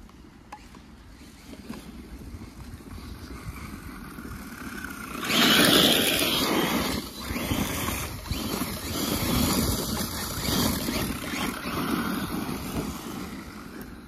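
A small off-road vehicle driving on dirt forest trails. Its motor and tyres start faint, turn suddenly loud about five seconds in, then swell and dip over the following seconds.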